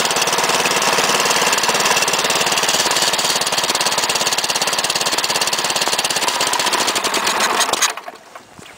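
A 10.5 hp Tecumseh Snow King single-cylinder snowblower engine running fast and loud with a rapid, even firing beat just after a cold start. It cuts off suddenly near the end.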